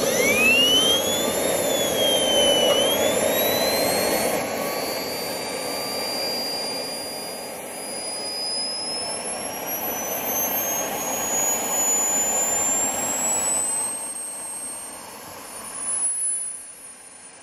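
Wren 54 Mk 3 model turbojet starting up: a high whine climbs quickly, dips a couple of seconds in, then rises steadily in pitch over a rushing noise as the engine spools up. There is a brief louder surge near the end, after which the noise falls away.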